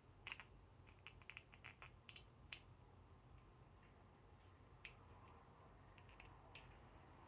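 Faint small clicks and taps of plastic as a tiny action figure and its clear plastic peg are handled and fitted together in the fingers. There is a quick run of clicks in the first couple of seconds and a few single ones later, over a low steady hum.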